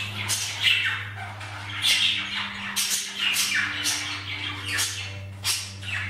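Budgerigars chirping and chattering: short, high calls following each other every second or so, over a steady low hum.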